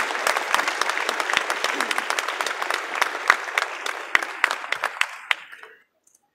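Audience applauding, the claps thinning out and dying away just before the end.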